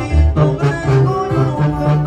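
Band music: plucked acoustic guitars over a bass line stepping from note to note, in the style of a Mexican corrido group.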